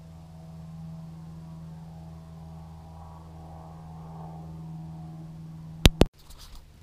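An aircraft engine droning steadily overhead, a small plane that pilots fly out here for practice manoeuvres. Near the end, two sharp clicks come in quick succession and the sound briefly drops out.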